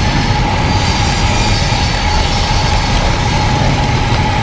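Wind buffeting the microphone of a bicycle ride camera on a road bike riding into gusty wind, a loud rough rumble with a thin steady whine beneath it.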